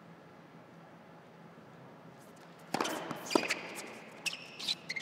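Quiet arena hum, then, a little under three seconds in, a tennis serve is struck and the rally starts: sharp racket-on-ball hits and a ball bounce, the loudest just after the serve. Short squeaks, like shoes on the court, follow near the end.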